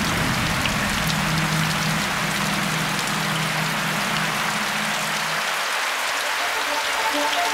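Heavy rain pouring steadily onto broad tropical leaves and a lawn: an even hiss dense with the splats of individual drops. Music fades in near the end.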